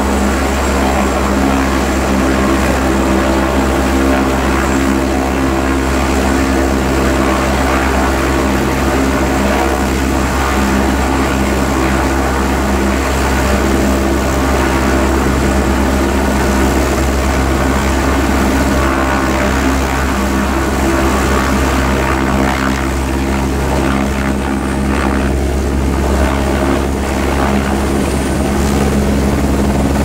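Helicopter running with its rotor at speed: a loud, steady drone of turbine engine and main rotor, holding level as the machine turns on the ridge and starts to lift off near the end.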